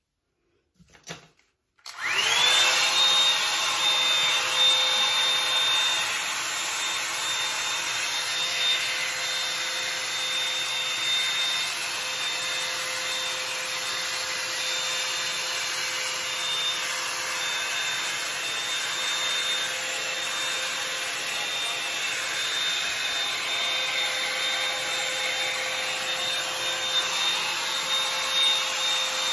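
Bed Head Blow Out Freak hot-air volume brush switched on about two seconds in: its motor whine rises quickly to a steady high pitch over rushing air and keeps running while it is drawn through the hair.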